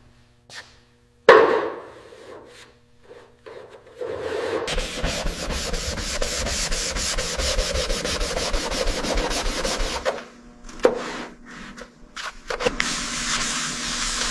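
Sanding a surface: a steady, fast rasping stroke that runs for about six seconds and picks up again near the end, with a sharp knock about a second in and a few taps in between.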